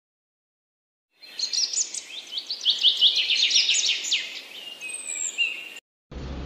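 About a second of silence, then birds chirping: a quick run of high chirps and short sweeping whistles lasting about four seconds, cutting off abruptly near the end.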